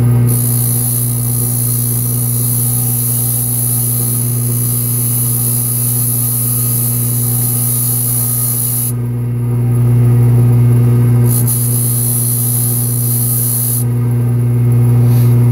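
Motor-driven wire brush wheel running with a steady hum while a filed-down lock pin is held against it to smooth the filed end, giving a high hiss. The hiss stops about nine seconds in, comes back briefly, and stops again. The motor cuts off at the end.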